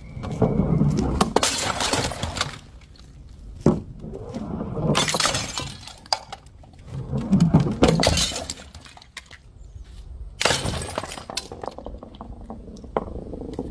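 Glass bottles shattering, several smashes a few seconds apart, each followed by the clinking of falling pieces.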